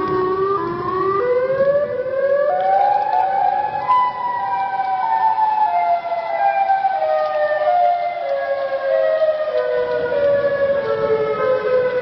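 Emergency alarm siren, several tones together, climbing in steps to its highest pitch about four seconds in and then slowly stepping back down.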